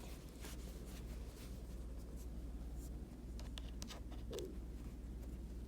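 Faint handling noise as a braided Lightning cable is moved and brought to a tablet: soft rubbing and scattered small clicks, with a sharper click near the end, over a steady low hum.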